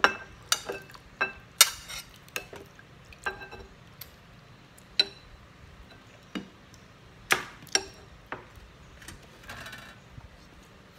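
Metal spoon and fork clinking and scraping against ceramic plates and a serving bowl as food is dished up and eaten. The clinks are sharp and ringing and come at irregular intervals, about a dozen in all, with a short scrape near the end.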